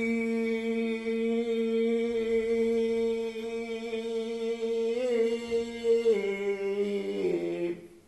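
A man's voice holding one long vocal note for about six seconds. It then drops in pitch in two steps and stops just before the end.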